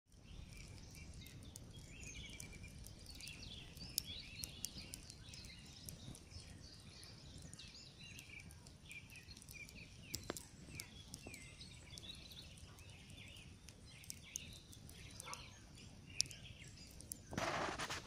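Wood campfire crackling, with scattered sharp pops over a low rumble, while small birds twitter in the background. A short louder rustle comes near the end.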